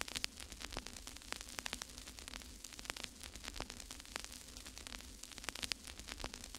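Faint crackling static: irregular clicks and pops over a low steady hum.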